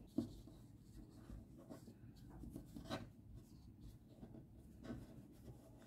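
Faint rustling of yarn and wire as hands handle a crocheted spider on a tabletop, pressing its wire-framed legs into place, with a few soft clicks.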